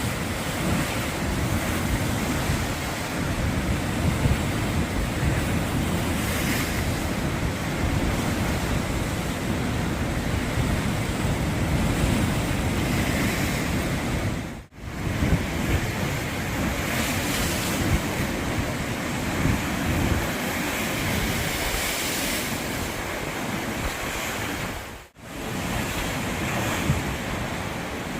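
Sea waves washing onto the shore in a steady rush, with wind buffeting the microphone. The sound drops out briefly twice, about halfway through and again near the end.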